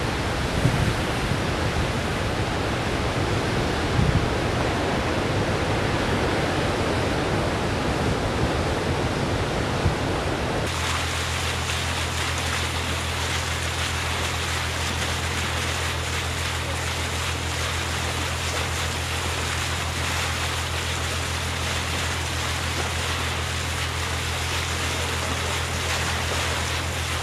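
Heavy surf, big waves breaking and rushing, with a few low thumps. About ten seconds in it changes abruptly to a boat under way: a steady rush of bow wave over a constant low engine hum.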